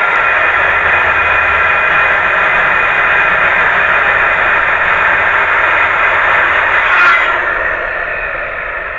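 Electric circular saw running loud and steady while cutting deck wood. At about seven seconds it is released and the blade winds down.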